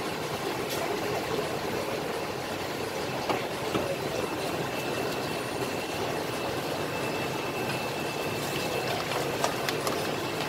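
Steady background din of a busy food-stall kitchen, with a few light clicks and knocks and a faint high whine partway through.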